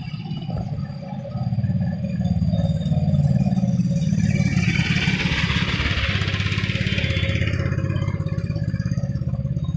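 Motor-vehicle engine running close by with a steady low pulsing throughout, while a hiss of tyres on the wet road swells and fades in the middle as traffic passes.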